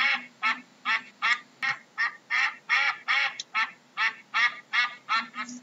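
Duck quacking in a long, even series of short, loud quacks, about two or three a second.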